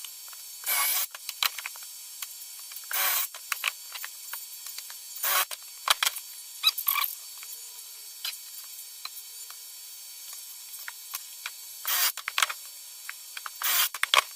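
Workbench handling noises: scattered clicks and taps, with about five short scraping or rustling bursts spread through.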